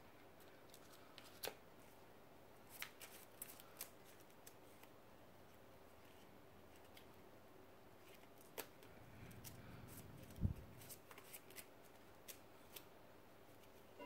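Faint, scattered clicks and taps of trading cards being handled and set down on a wooden table, with one louder thump about ten and a half seconds in.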